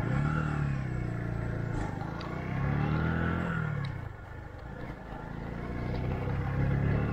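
A road vehicle's engine revving up and easing off three times, its pitch rising and falling each time.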